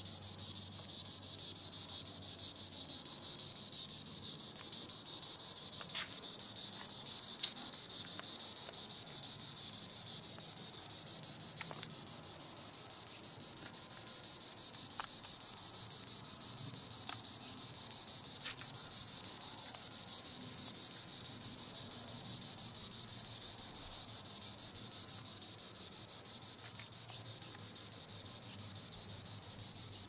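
Green annual cicada (Tibicen linnei) singing: a continuous high, shrill buzz that swells in the middle and slowly fades. Two sharp clicks sound about six and seven seconds in.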